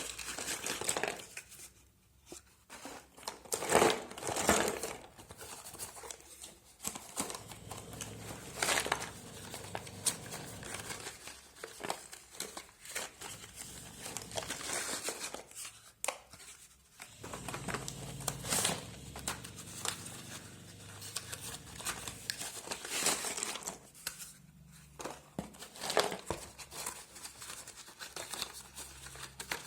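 Packaging of a slate pencil box being crinkled and torn open by hand: irregular rustling with sharper crackles here and there.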